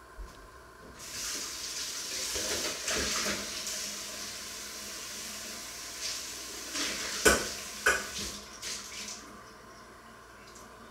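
Kitchen tap running into a sink for about eight seconds, turned on and off abruptly, with dishes clattering in the sink; two sharp clanks near the end are the loudest sounds.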